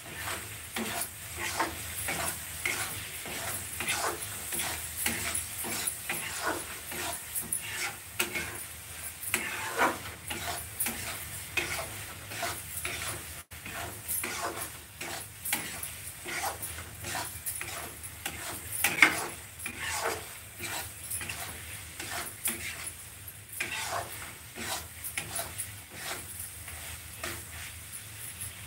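Steel spatula stirring and scraping chicken masala around a kadai, with repeated scrapes about twice a second over a steady sizzle of frying. One stroke a little past halfway through is louder than the rest.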